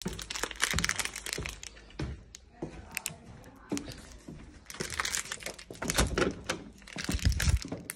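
Plastic ice cream bar wrapper crinkling and crackling in a hand, with a few dull thumps near the end.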